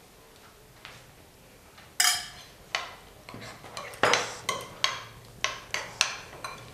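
Steel spoon clinking against a glass bowl as it stirs curd into ground spices. There is a string of about ten sharp, ringing clinks, starting about two seconds in.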